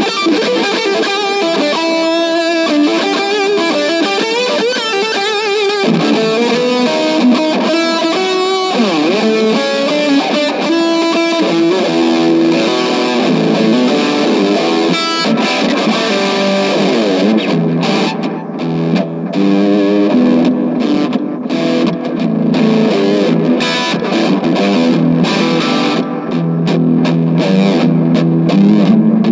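Electric guitar, a Gibson Les Paul Junior with P90 pickups, played through a VOX AC4C1-12 valve combo amp with a Boss DS-2 distortion and a DM-2W analog delay in the chain. It plays a continuous passage of notes, with some wavering, bent notes near the middle.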